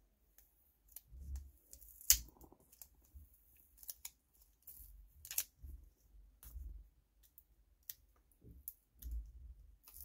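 Scissors snipping and clicking lightly amid the handling of a roll of washi tape, as the tape sealing the roll is cut and picked at. Scattered sharp clicks, the loudest about two seconds in, come over soft handling bumps.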